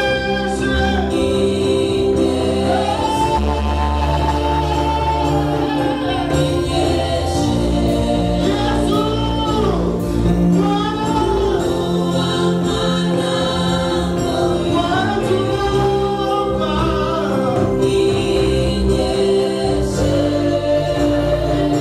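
Gospel praise team singing together into microphones over amplified backing music with long held bass notes.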